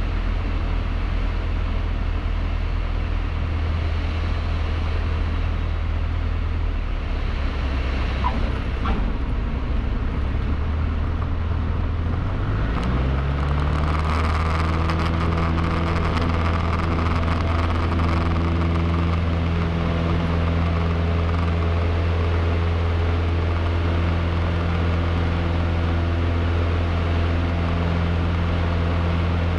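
Cessna 152's Lycoming four-cylinder engine and propeller, heard from inside the cabin, running steadily. About twelve seconds in the pitch rises as the throttle is advanced to a higher power setting, and the engine then holds steady at the higher speed.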